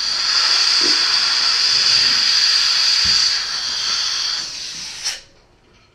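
Dental suction hissing steadily as the assistant's evacuator tube draws air and saliva from the patient's mouth, then cutting off sharply about five seconds in.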